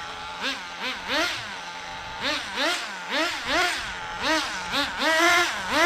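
HPI Nitro Star T-15 two-stroke glow engine of an RC touring car, blipped on the throttle about a dozen times in quick succession, dropping back to a steady idle between revs; the last rev near the end is held longer. It is fitted with an intact replacement exhaust in place of a broken one, so it runs quieter.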